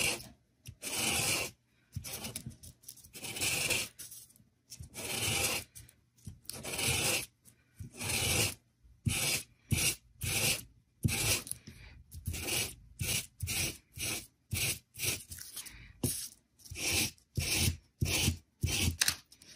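Green alcohol marker rubbed in repeated strokes over crepe paper, a dry scratchy rub with each stroke as the paper is coloured. The strokes are about a second long at first, then shorter and quicker in the second half.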